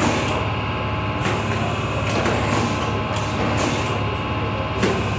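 Automatic carousel screen printing machine running, a steady low hum with short bursts of hiss every second or so as it works.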